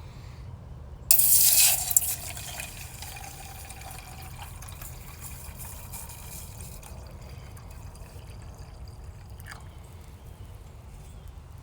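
Water poured out in a short, loud rush about a second in, tailing off into a quieter trickle.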